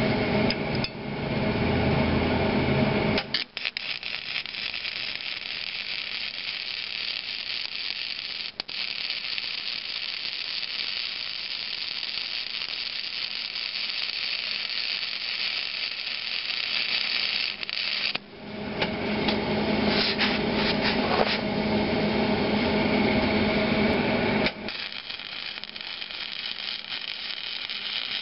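Flux-core wire-feed welder arc crackling and hissing steadily as a bolt is welded onto the stub of a broken gib key, running beads to give it something to pull on. A louder, deeper noise fills the first three seconds, and the sound turns louder and fuller for several seconds after a short break a little past the middle.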